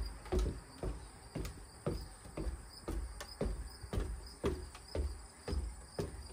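Footsteps, about two a second, as someone walks along a porch, over a steady high insect buzz.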